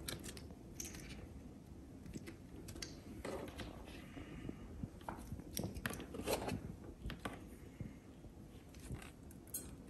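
Faint, irregular small clicks and crinkles of a thin electrical cable end being handled and worked between the fingers.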